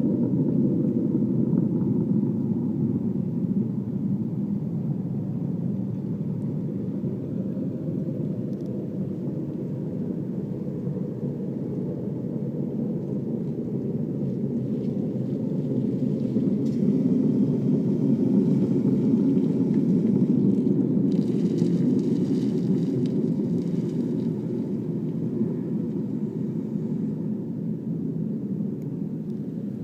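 A low, steady droning rumble in the night air that swells and fades slowly and sounds like a distant airplane. Its source is unidentified.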